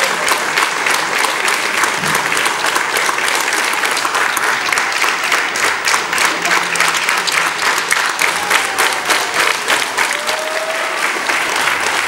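Audience applauding steadily, many hands clapping, for a cast taking its curtain call.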